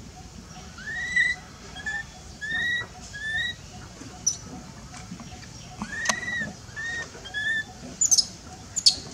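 Infant long-tailed macaque crying: a series of about eight short, high-pitched calls, each rising and falling in pitch, with a few sharp, very high chirps near the end.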